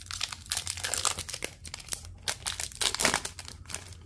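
Foil wrapper of an O-Pee-Chee Platinum hockey card pack being torn open and crinkled by hand: a dense, irregular run of crackling that dies away near the end.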